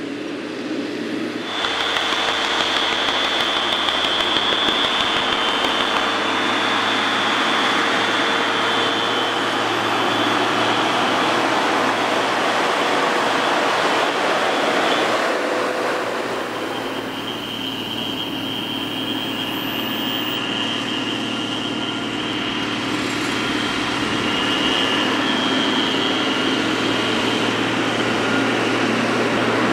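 Fendt Favorit 924 tractor working under load as it pulls a land-levelling board through loose soil: a steady engine and drivetrain sound with a high whine over it, and a dense rushing noise of earth being pushed along by the blade.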